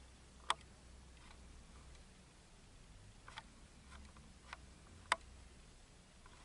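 A few faint, sharp clicks at irregular intervals over a low steady hum. The two loudest fall about half a second in and about five seconds in.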